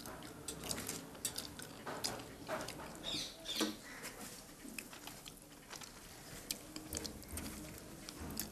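Eating by hand: scattered soft clicks and mouth sounds of a person chewing and tearing luchis, with a short falling squeak about three and a half seconds in.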